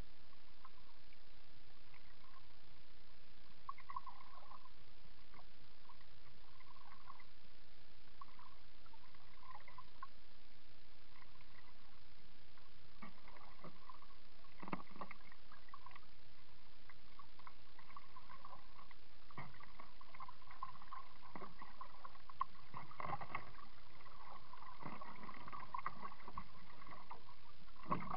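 A kayak being paddled: irregular water swishes and splashes, busier in the second half, with a few sharp knocks, all dull and muffled over a steady hiss.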